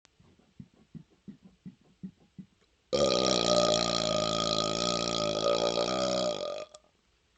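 A man's voluntary belch after swallowing air: a run of faint, quick gulps as air is swallowed, then about three seconds in a loud, long burp held at a steady pitch for over three seconds before it dies away.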